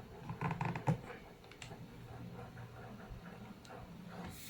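Plastic clicks and knocks from a laptop being handled and set down, in a cluster in the first second with the loudest knock just under a second in, then a few faint ticks over a faint low hum.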